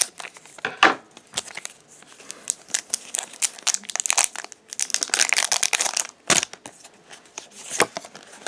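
Foil Pokémon booster pack wrapper crinkling and tearing as it is ripped open by hand, with irregular crackles that grow dense about halfway through and a couple of sharper snaps near the end.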